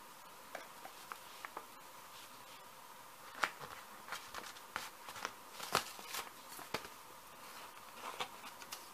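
Paper handling on a gel printing plate: an envelope being laid down and pressed onto the inked plate by hand, giving scattered light taps and paper crinkles, mostly in the second half.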